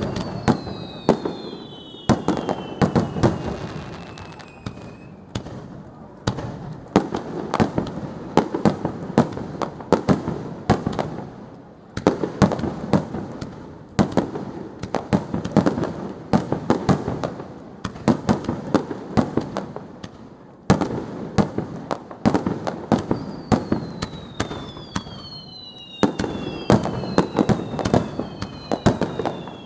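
Fireworks display: a continuous dense crackling and popping, with loud bangs every few seconds. High whistling tones fall slowly in pitch near the start and again in the last several seconds.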